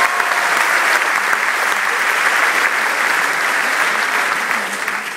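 Audience applauding with dense clapping that fades away near the end.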